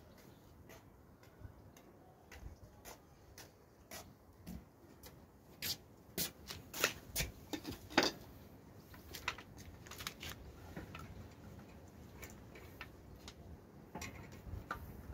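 Scattered light clicks and taps of footsteps and hand tools being handled, with a cluster of louder ones about six to eight seconds in.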